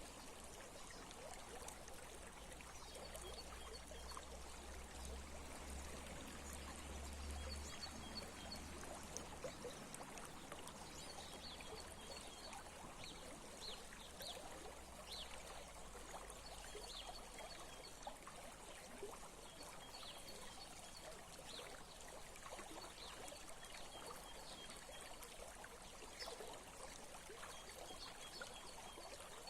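A small stream trickling and flowing steadily over stones. Short high chirps come in scattered groups, and a faint low rumble sits under the water for roughly the first ten seconds.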